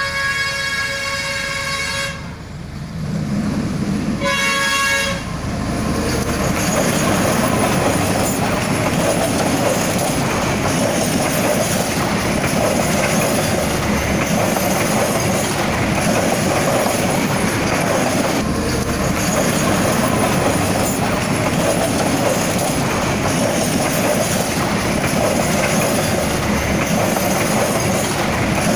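Diesel locomotive horn sounding two blasts, the first ending about two seconds in and a shorter one a couple of seconds later, followed by the steady noise of the passenger train's coaches running past close by, wheels on the rails.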